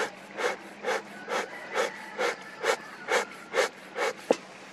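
Hive smoker bellows pumped by hand, giving even puffs of air at about two a second into the fire pot to get the wood-pellet fuel burning. The puffing stops just after four seconds in, followed by a single sharp click, the loudest sound.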